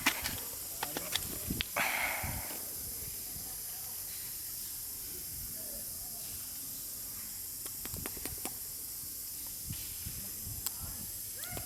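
Steady high-pitched hiss with a few faint clicks and a short rustle about two seconds in.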